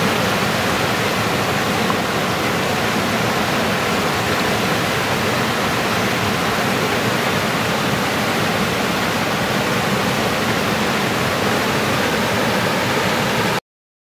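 McKenzie River whitewater pouring over a rock ledge in a loud, steady rush, cutting off abruptly near the end.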